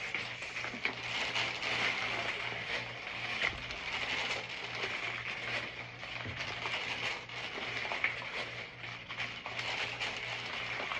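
The plastic shrink-wrap and bottles of a 24-pack of bottled water crinkle and crackle continuously with many small clicks as the pack is handled and lifted.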